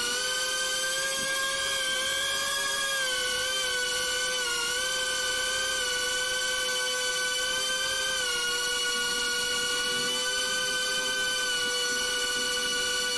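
Beta95X V3 cinewhoop drone's motors and ducted propellers in flight, heard from the onboard camera: a steady high whine whose pitch shifts slightly with the throttle and drops a little about eight seconds in.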